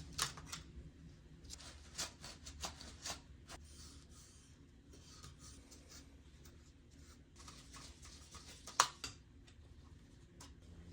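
Light clicks, taps and short scrapes of hands and small tools working on an opened laptop's plastic parts, with a sharper click about nine seconds in.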